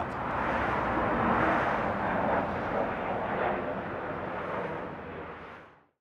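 Freeway traffic passing as a steady rushing noise, fading out near the end.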